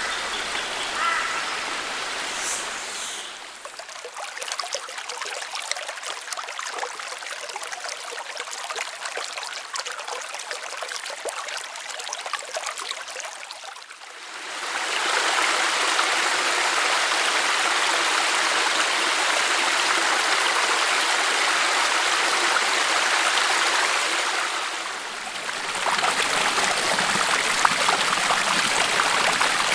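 Running water of a rainforest creek, a steady rushing with no pitch. It is thinner and quieter for about ten seconds, then swells into a fuller, louder rush from about halfway in, with a brief dip near the end.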